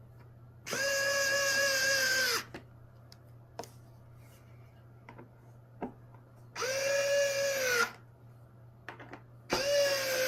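Power drill running in three short bursts, a steady whine that drops in pitch each time the motor stops. The bursts fit screws being driven back into a coffee maker's housing.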